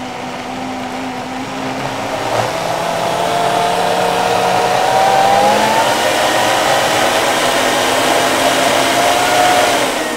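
Optimum 9900 high-speed blender motor running, blending a thick raw-chocolate mixture. It is turned up from low about two seconds in, and its whine rises in pitch and holds steady, then starts to wind down at the very end.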